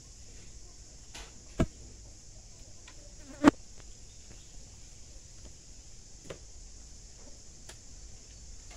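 Steady high-pitched drone of insects. It is broken by a few sharp cracks from watermelon pieces being snapped and handled by hand over a plastic basin; the two loudest come about one and a half and three and a half seconds in.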